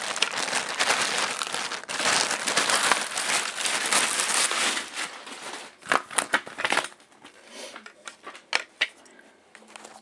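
Plastic bag crinkling and rustling as it is pulled open around the tripod for about five seconds, then a few sharp knocks and clicks, followed by quieter handling with scattered clicks.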